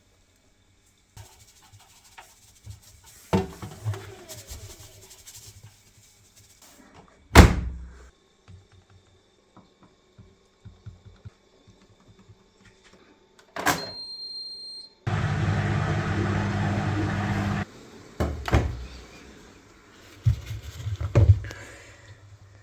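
Washing machine being handled and started: clicks and knocks, one sharp loud knock, a short high electronic beep, then the motor hums steadily for about three seconds, followed by a few more thumps.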